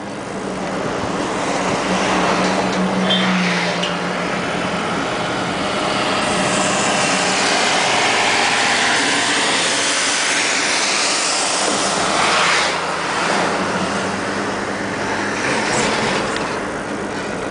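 Vehicle noise: a steady rushing haze with a low engine hum, swelling a few times as vehicles pass.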